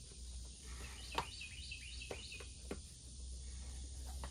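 Leather boot laces being pulled tight and handled, giving a few sharp clicks and taps, the loudest about a second in. A bird calls a short run of quick, high notes in the background at about the same time.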